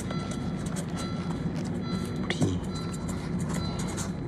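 A pen scratching across a soft paper napkin in short strokes, over the steady low drone of a car interior.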